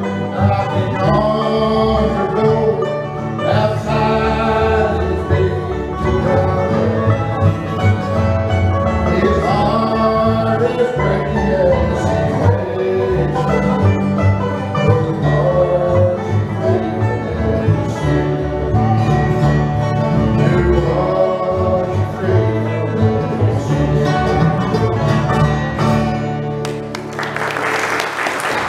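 Live bluegrass band playing with fiddle, acoustic guitar, mandolin, banjo and upright bass, with singing. The song ends about 27 seconds in and applause starts.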